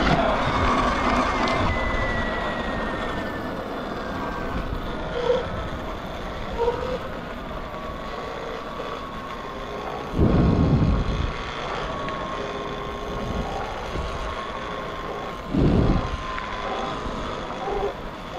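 Sur-Ron X electric dirt bike riding along: the electric motor and drivetrain whine sinks in pitch over the first several seconds as the bike slows, then holds steady, over tyre and wind noise. Two short, loud low rumbles come about ten and fifteen and a half seconds in.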